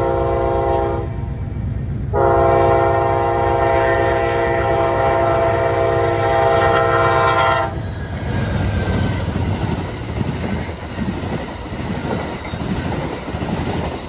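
Amtrak P42DC diesel locomotive's multi-chime horn at a grade crossing: one blast ends about a second in, then a long blast is held for about five and a half seconds. After the horn stops, the train rolls past with a rumble and wheel clatter.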